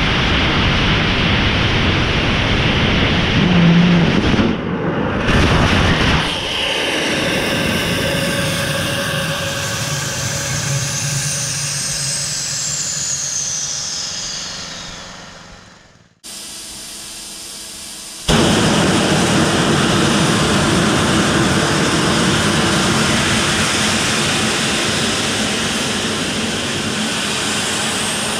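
Nitrous oxide/ethanol liquid-bipropellant rocket engine firing in a static test: a loud, steady rushing roar that weakens and fades over about ten seconds as the burn tails off, with a falling whistle near the end. It cuts off suddenly, and about two seconds later a new steady loud rush starts: the engine's cold flow, propellant blowing through it unlit.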